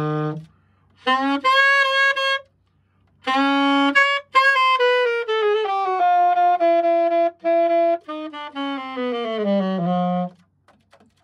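New Yamaha YAS-280 alto saxophone played solo: a few short phrases with brief pauses, some held notes and a falling run, stopping about ten seconds in. The player finds it heavy to blow in places and slightly off in pitch, and thinks it may need a setup.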